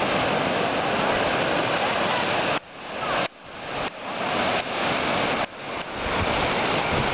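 Surf breaking and washing up a sand beach: a steady rushing hiss. In the middle it cuts out sharply several times, swelling back within a second each time.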